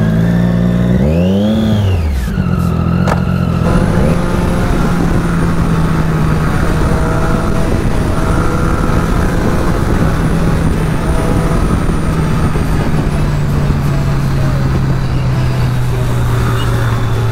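Triumph Daytona 675R's 675 cc inline-three engine through a Scorpion aftermarket exhaust, revving up hard as the bike pulls away about a second in and dropping at a gear change, then running at steady revs under way, its pitch slowly falling near the end.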